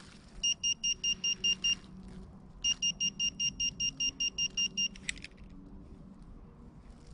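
Handheld pinpointer probe beeping rapidly, about five beeps a second, in two runs of one to two seconds each, as it is held close to a buried metal target, here a scrap of wire. A short click follows the second run.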